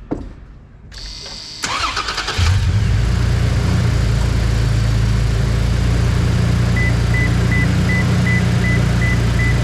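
A 2022 Toyota Tacoma engine is cranked briefly by the starter and catches about two and a half seconds in, a good start on the newly installed dual batteries. It then settles into a steady idle. Near the end a high beeping chime repeats evenly, about three beeps a second.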